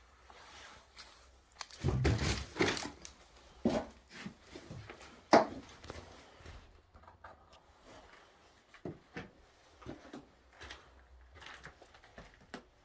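Scattered knocks and thuds, the loudest about five seconds in, with a longer scraping, rustling stretch around two seconds in.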